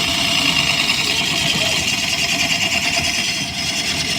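Line-shaft-driven wood lathe and its overhead shafting and belts running, a steady, fast rhythmic mechanical clatter.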